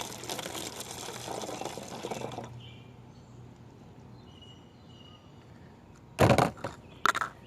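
Hydrogen peroxide poured into a container, a splashing pour that stops about two and a half seconds in. Two sharp knocks follow near the end.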